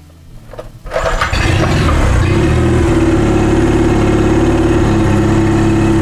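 2009 Mercury 9.9 HP four-stroke outboard pull-started with the choke on, out of gear at about quarter throttle: it catches about a second in and keeps running steadily, now that its rebuilt fuel pump is feeding it fuel.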